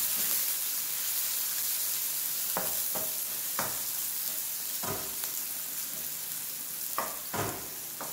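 Chopped onions, tomato, garlic, scotch bonnet pepper and scallion sizzling steadily in a hot non-stick wok as they sauté, with a wooden spoon knocking and scraping against the pan about six times as they are stirred.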